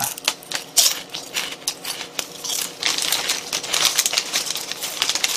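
A plastic snack bag crinkling while potato chips are crunched between the teeth, heard as a quick, uneven run of crackles.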